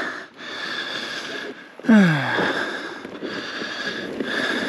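A worn-out rider breathing hard, each breath swelling and fading, with one falling groan about two seconds in.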